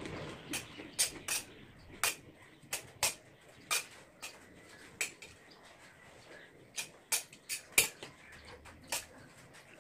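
Metal spoon clinking and scraping against a metal bowl while rice is stirred and scooped: a string of irregular sharp clicks, bunched more closely a little past the middle.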